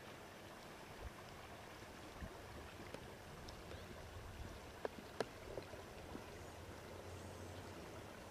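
Faint steady outdoor background noise, with two light clicks about five seconds in.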